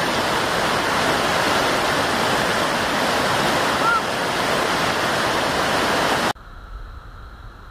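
Waterfall and the cascading stream at its foot rushing, a dense steady roar of falling water. About six seconds in it cuts off abruptly to a much quieter steady hiss.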